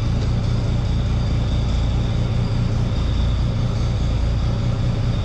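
Oliver 1600 Industrial tractor's engine running steadily at an even speed.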